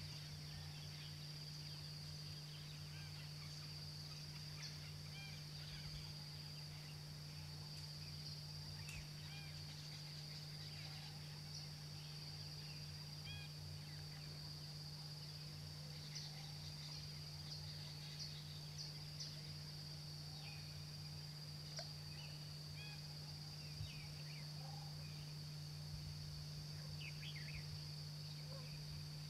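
Outdoor ambience: a steady high insect drone with scattered short bird chirps, over a low steady hum.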